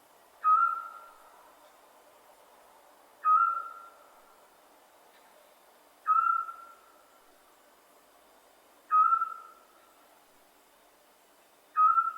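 Scops owl calling: a short, single whistled note repeated five times at an even pace, roughly one every three seconds.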